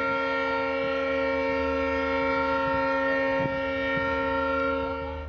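WDP4D diesel locomotive's horn held in one long steady multi-note blast that cuts off just before the end, over the low rumble of the moving train.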